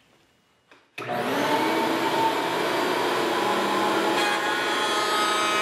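Table-mounted router switched on about a second in, spinning up quickly and then running steadily with a high whine as its flush trim bit trims the edge of a wooden ring.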